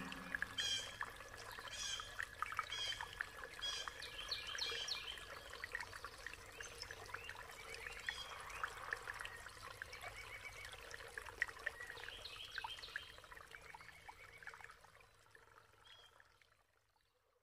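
Trickling, pouring water with short high bird chirps repeating about once a second for the first few seconds, then more chirps later, the whole fading out over the last few seconds.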